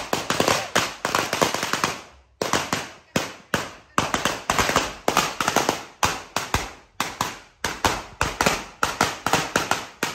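Firecrackers going off in rapid strings of sharp bangs. The bangs run almost nonstop for about two seconds, pause briefly, then come in quick clusters about every half second.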